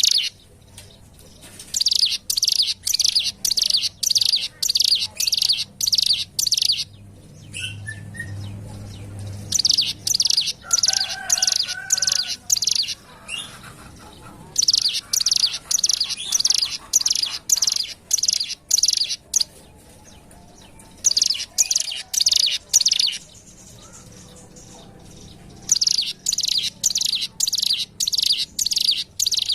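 Ciblek gunung, a prinia, singing a fast series of sharp, high chirping notes, about two or three a second. The notes come in bouts of a few seconds with short pauses between them.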